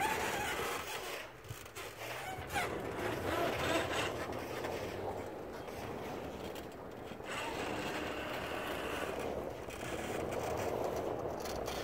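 Honda Ridgeline pickup reversing while its wooden hitch-mounted plow pushes and scrapes through snow. The engine runs with a low steady hum under the crunch and scrape of snow.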